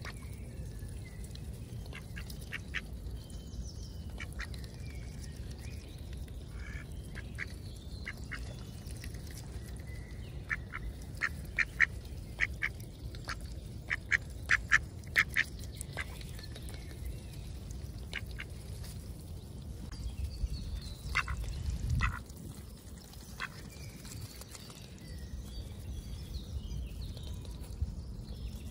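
Mallard ducks at close range giving short quacks in quick runs, busiest about halfway through, over a steady low rumble.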